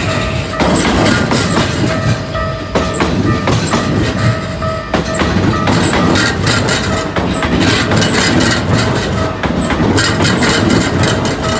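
Electric commuter train cars passing close by, a continuous rumble with wheels clacking over the rail joints.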